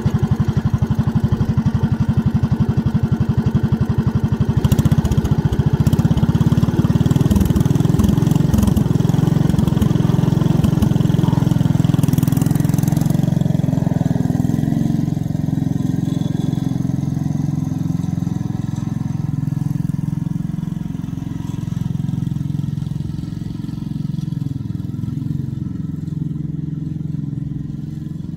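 Kohler K91 single-cylinder engine on a Wheel Horse RJ35 garden tractor, running just after starting. About five seconds in its note changes and becomes less even as the tractor drives off, and the engine gradually fades as it moves away. The carburettor still needs a little tuning.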